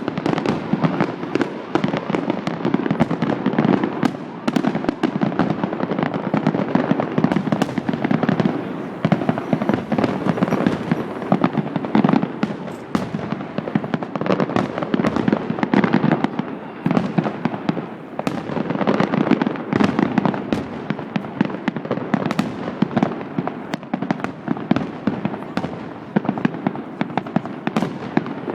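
Aerial fireworks display in full barrage: a dense, continuous run of bursts and crackles, several sharp bangs every second.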